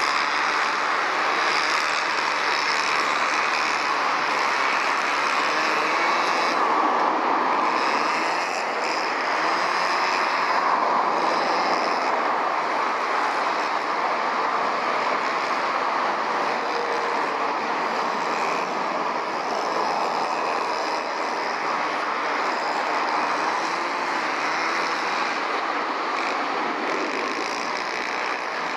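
Twin jet engines of a Delta Air Lines Airbus A330 on the runway at takeoff power. The jet noise is loud and steady, with a faint high whine above it.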